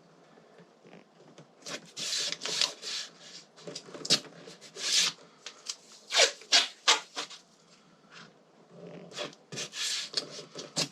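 Irregular rubbing and scraping strokes, starting about two seconds in: hands working at the mounting parts.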